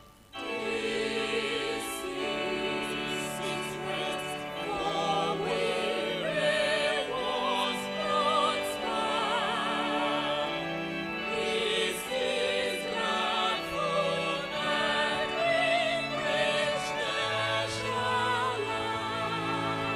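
A church choir and congregation singing a hymn, wavering voices over steady held chords; the singing comes in just after a brief pause at the start.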